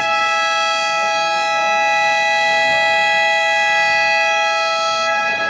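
Basketball arena scoreboard buzzer sounding one long, steady, unwavering blast of about five seconds that cuts off abruptly.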